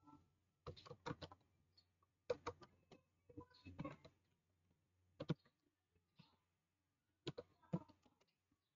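Faint typing on a computer keyboard: keystrokes come in short bursts of a few clicks at a time, with pauses between them.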